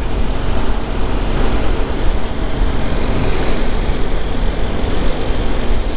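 Refrigerated trailer's diesel reefer unit running close by: a loud, steady mechanical drone with a constant low hum.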